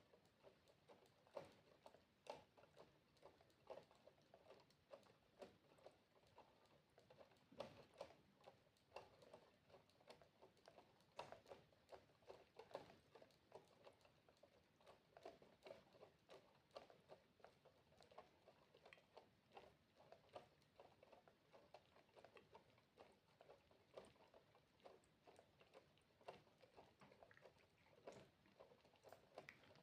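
Water droplets dripping faintly and irregularly, several drops a second.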